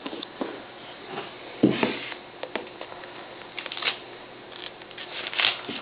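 Small retail box and packaging being handled: scattered light clicks and short rustles, with a louder bump about one and a half seconds in.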